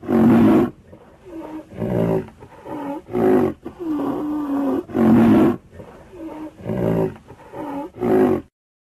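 A string of loud animal roars, one after another with shorter growling calls between, cutting off suddenly near the end.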